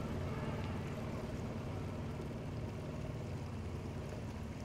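Small boat's motor running steadily under way, a low even drone.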